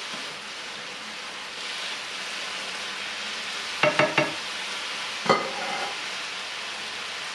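Grated cauliflower and dried tuna sizzling steadily in a frying pan as a spatula stirs it. About four seconds in, the spatula knocks against the pan three times in quick succession and once more a second later, each knock ringing briefly.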